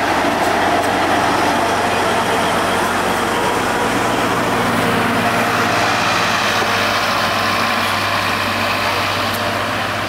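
DL47 narrow-gauge diesel locomotive's engine running steadily and loud as it passes close by, pushing its train of carriages out of the station.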